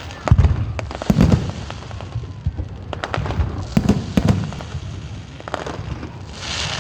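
Fireworks going off in a display: a series of loud bangs with crackling in between, the heaviest about a second in and around four seconds in.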